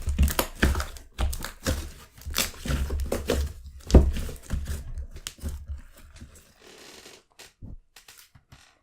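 Freshly made clear glue slime being squished and stretched by hand, with dense, irregular sticky crackles and air-bubble pops that thin out after about five seconds.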